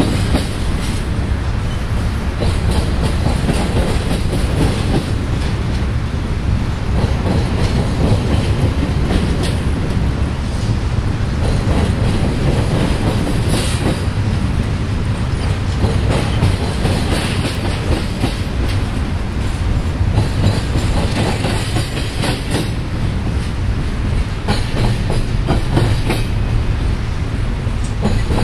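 Double-stack intermodal freight train's well cars rolling past, a steady rumble with the wheels clacking over rail joints.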